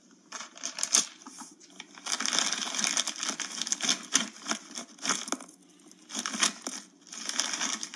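Crinkling and rustling of a bag of hot Cheetos being handled, in two long stretches with many small crackles.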